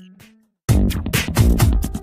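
Background music with a steady drum beat; it fades out to a brief silence about half a second in, then starts again abruptly.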